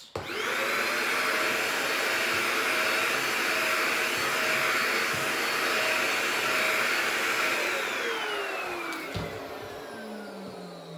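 Handheld Dustbuster vacuum switched on, spinning up quickly, and running steadily as it picks up swept crumbs from the floor. About eight seconds in it is switched off and its motor winds down with a falling whine.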